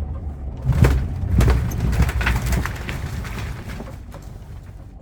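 Wooden garage framing cracking, creaking and crashing down as a truck pulls it with a tow rope, with the truck's engine running underneath. A burst of sharp cracks and heavy rumbling starts about a second in and dies down after about three seconds.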